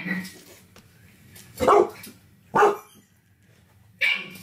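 A dog barking: two sharp barks about a second apart, with another bark starting near the end.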